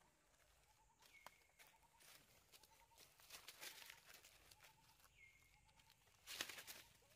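Faint rustling and crunching of dry leaves as monkeys move about on the forest floor close by, loudest near the end. A few short high chirps sound in the background.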